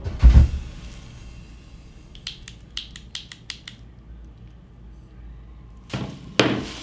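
Electric hair clippers being handled: a low thump just after the start, a quick run of about eight sharp clicks around the middle, then two knocks near the end as the clippers are set down on a table.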